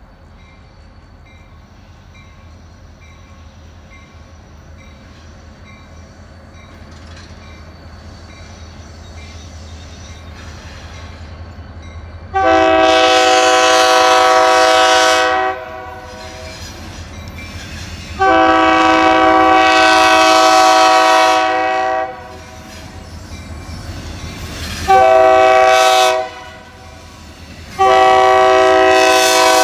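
Diesel locomotive horn on the leading EMD MP15DC switcher, several notes sounding together, blowing the grade-crossing signal: long, long, short, long, the last blast still sounding at the end. Before the first blast, about twelve seconds in, the rumble of the approaching locomotives grows steadily louder.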